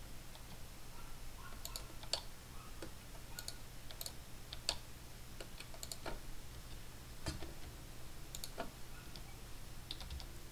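Faint, irregular clicking of computer keys, one or two clicks a second, over a low steady hum.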